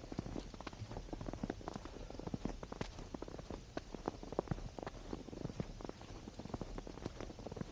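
Footsteps crunching through snow, a continuous irregular crackle of boots on packed snow.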